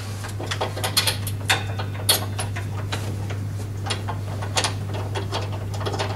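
Irregular small clicks and ticks of a bolt, washer and hand wheel being fitted and screwed onto a lawn mower's lower handle bracket, over a steady low hum.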